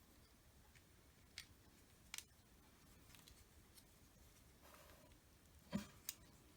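Near silence broken by a few scattered sharp clicks of plastic LEGO bricks being handled and pressed together, the loudest two near the end.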